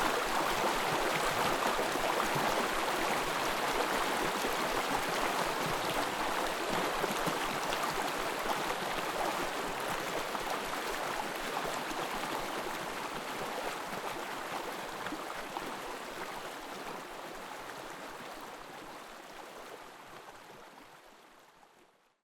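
Small forest stream babbling steadily, fading out gradually over the second half until it is gone.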